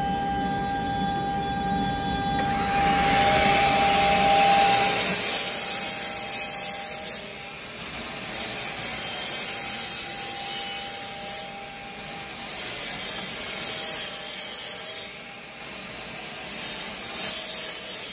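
Miter saw cutting through a wide hardwood board. A steady motor whine runs for about five seconds, then a hissing cutting noise takes over and dips briefly three times before stopping suddenly at the end.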